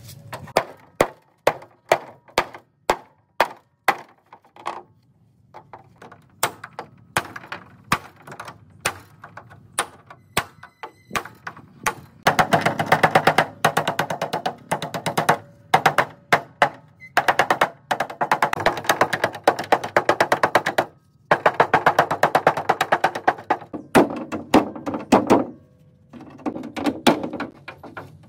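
Hammer striking the steel inner frame of a car hood: single sharp knocks about two a second at first, then from about twelve seconds in, rapid strings of taps in bursts a few seconds long with short pauses between.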